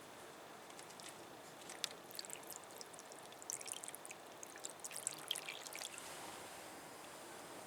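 Liquid being poured into a vessel, with small splashing crackles and a rising tone as it fills, over a steady background hiss.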